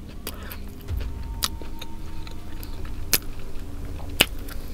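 Close-miked handling noise: a few sharp clicks and taps, about three in all, over a low rumble that sets in about a second in.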